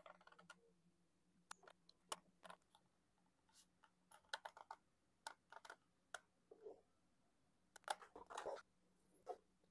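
Faint, scattered small clicks and taps, with a denser cluster about eight seconds in: hands working a hot glue gun on the rubber airbox-to-carburettor sleeve of a motorcycle.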